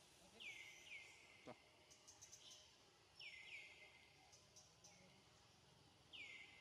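Faint bird calls: short notes falling in pitch, a pair about half a second in, another pair about three seconds in, and one near the end, over quiet outdoor background noise.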